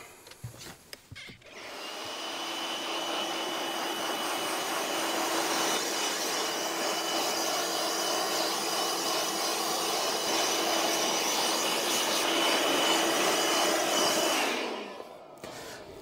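Cordless battery-powered leaf blower running steadily with a whine, blowing snow out of a rock fire ring. It spins up a second or so in and winds down near the end.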